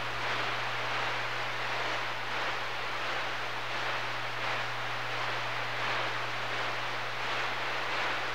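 CB radio receiver giving a steady hiss of static on channel 6 (27.025 MHz), an open channel with no station coming in, over a steady low hum.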